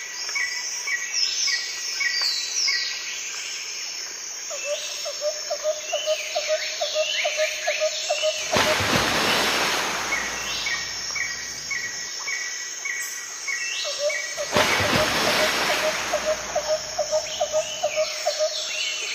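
Nature-sound background track: series of short bird chirps and calls over a steady hiss, the pattern repeating, with two swelling whooshes of noise about eight and fourteen seconds in.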